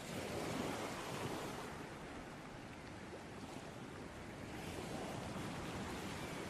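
Ocean waves breaking and washing onto a beach, a steady surf with a swell of a breaking wave about half a second in.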